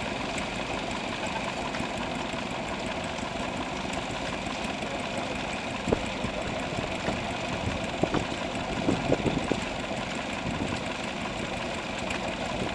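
Small vertical stationary engine running steadily while belt-driving a small pump and a cream separator, with a few brief sharp clicks about halfway through.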